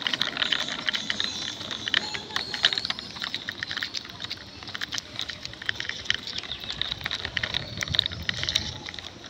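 Plastic toy dump truck's wheels rolling over rough, gritty concrete as it is pushed by hand: a quick, irregular clatter of small clicks and rattles.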